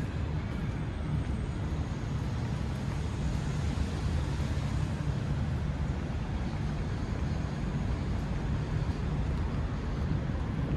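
Steady city street ambience: a constant low traffic rumble with an even hiss over it and no single event standing out.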